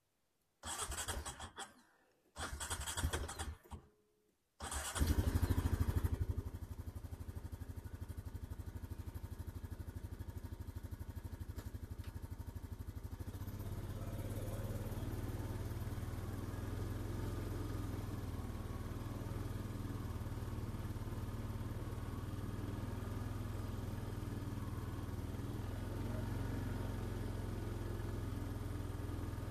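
A small ATV engine is cranked with two short bursts of the starter, catches about five seconds in with a brief rev, then runs steadily, a little louder from about halfway through.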